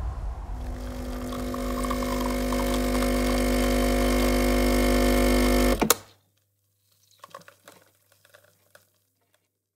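A steady electric appliance hum, growing slightly louder, that cuts off abruptly with a click about six seconds in, followed by a few faint light clatters.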